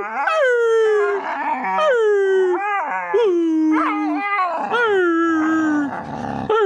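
Pit bull puppy making play vocalizations: a run of drawn-out howling yowls about once a second, each sliding down in pitch, with rough growly noise between some of them.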